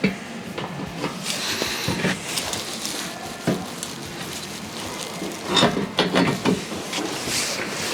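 Scattered knocks and clatter of metal parts being handled while a steel wheel carrier is offered up to a van's rear-door hinges, with a burst of louder knocks about six seconds in.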